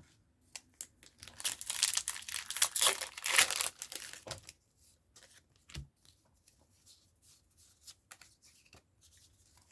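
A Pokémon TCG booster pack's foil wrapper being torn open and crinkled for about three seconds, then faint scattered ticks.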